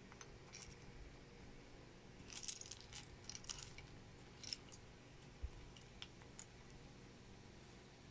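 Small plastic Lego pieces clicking and rattling against each other as fingers sort through a loose pile, with a flurry of clicks about two to four seconds in and a few single clicks after.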